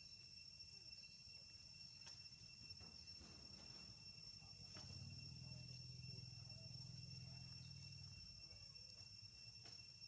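Faint, steady high-pitched drone of insects calling, over a low rumble that swells into a hum between about five and eight seconds in.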